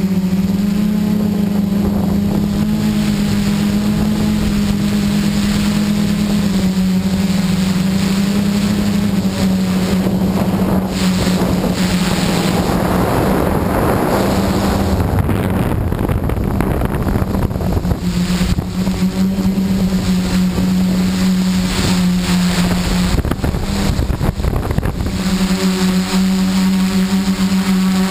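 Xaircraft X650 quadcopter's brushless motors and propellers running with a steady hum, heard close up from the camera on board. Midway the hum sinks under wind rushing over the microphone, then comes back strong near the end as the quad comes down low over grass.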